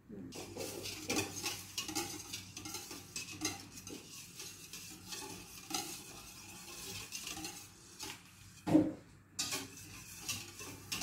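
Wire balloon whisk beating a thin liquid mix of eggs, oil and buttermilk in a stainless steel bowl, the wires scraping and clinking rapidly against the metal. A single louder bump comes about nine seconds in.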